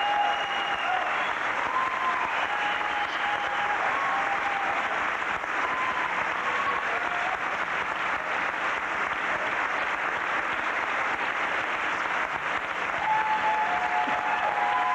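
Audience applauding steadily through a curtain call, a dense unbroken clapping.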